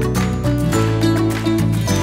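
Background instrumental music with a steady run of notes.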